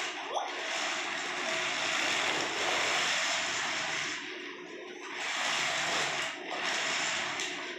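Plastic wheels of a baby walker rolling back and forth across a smooth tiled floor: a rushing rumble that swells and eases a few times.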